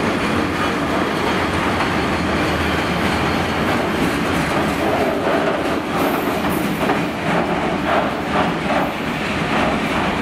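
Loaded steel-coil freight wagons rolling past, their wheels clattering over the rail joints in a steady clickety-clack. A brief high wheel squeal comes about six seconds in.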